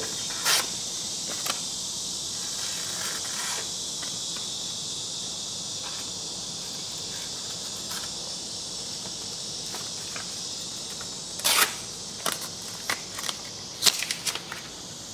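Steady high chirring of insects throughout, with a few sharp clicks near the start and a cluster of clicks and snaps about twelve to fourteen seconds in from a folding pocket knife's blades being handled.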